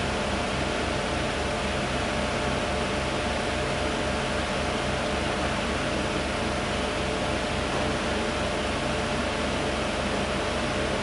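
1997 Mikron-Haas VCE500 CNC machining center running steadily: an even whirring noise with a constant hum tone and a fast, regular pulsing underneath.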